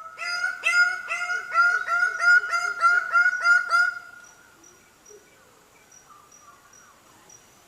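Greater bird of paradise calling: a fast series of loud, goose-like honking notes, about two to three a second, ending about four seconds in. Then only faint high notes repeating.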